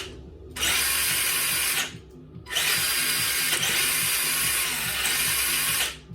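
Tamiya Gravel Hound RC car's electric motor and gearbox whining in short runs of throttle: a burst of about a second, then a longer run of some three seconds. Each run cuts off sharply.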